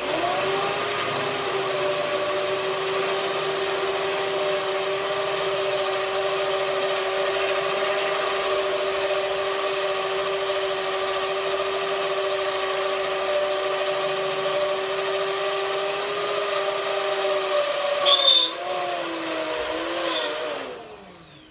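Handheld power tool running steadily at one pitch while cutting out rivets in a steel vehicle chassis frame. Near the end its pitch shifts, a sharp loud knock sounds, and the motor winds down with a falling pitch.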